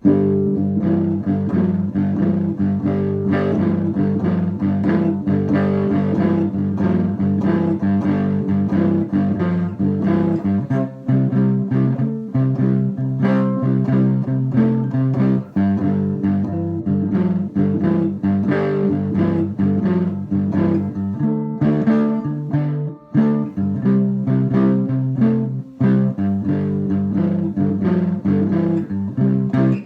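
Three-string cigar box guitar being played: a continuous run of plucked notes over ringing low notes, with a few brief pauses.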